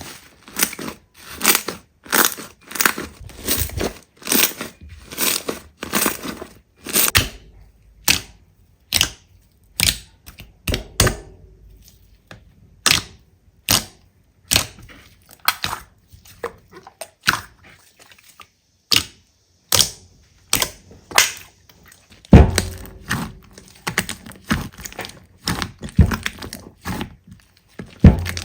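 Slime being pressed and squeezed by hand, giving a run of sharp crackling pops and clicks about two a second, with a heavier thud about three quarters of the way through.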